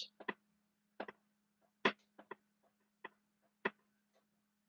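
Dry-erase marker writing on a whiteboard: short, irregular ticks and scratches as each stroke of the letters lands, over a faint steady hum.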